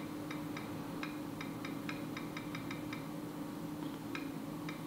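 Light, irregular clicks of typing on the Asus PadFone Mini's touchscreen keyboard, a few taps a second with a short pause near the end.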